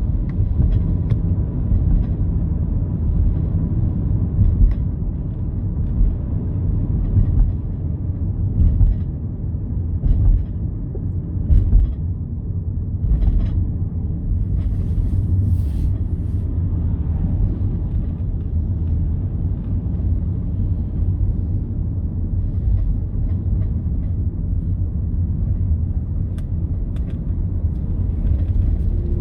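Steady low rumble of a car driving, heard from inside the cabin, with a few brief faint ticks.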